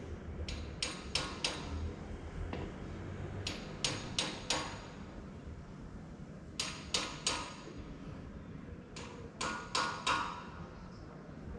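Sharp knocks in bunches of three or four, a few seconds apart, over a low hum that fades out about three and a half seconds in.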